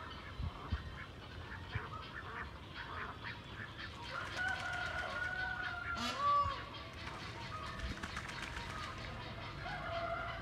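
Domestic ducks calling and quacking: many short notes throughout, a longer drawn-out call from about four seconds in, and the loudest call about six seconds in.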